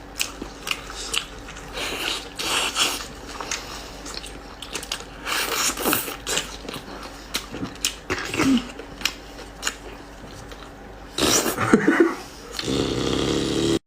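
Close-up eating sounds: irregular wet chewing, smacking and biting as tender braised lamb shank meat is eaten off the bone.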